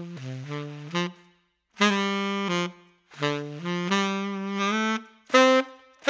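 Tenor saxophone played through a Jody Jazz HR* Custom Dark mouthpiece with a 7* tip opening and a 2.5 reed. It plays a jazz line in short phrases with brief pauses, dropping into the low register near the start and playing a few short, separate notes near the end. The tone is dark with a crisp response.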